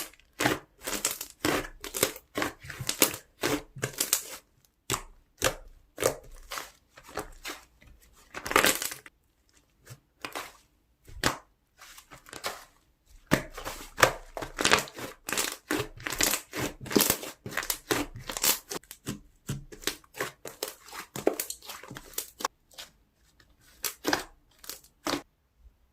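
Slime being squeezed, pressed and stretched by hand, giving dense irregular runs of crackles, pops and squelches in bursts with brief pauses, then stopping abruptly near the end.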